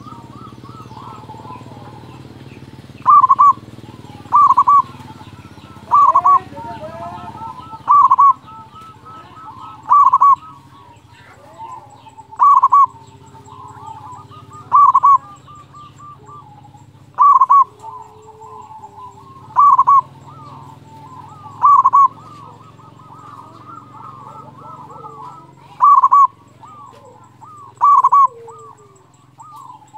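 Zebra dove (perkutut) singing over and over: a loud, short cooing call about every two seconds, with fainter chirping and trilling between the calls.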